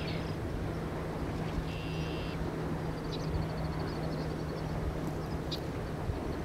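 Open-country ambience: a steady low rushing noise with a low hum that fades out near the end, and a few short high bird calls, one buzzy call about two seconds in and a rapid trill around three seconds in.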